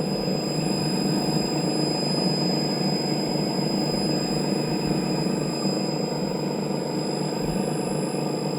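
Electric motor of a TruHone HR8 knife honer running steadily with a rough, knocking sound, which the owner takes for a worn bearing. A thin, steady high whine sits over it.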